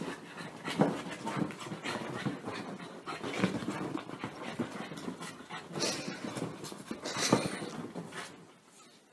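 A small dog panting and scuffling against fabric couch cushions as it rolls and squirms, with scattered rubbing and scrabbling noises; the sound fades out near the end.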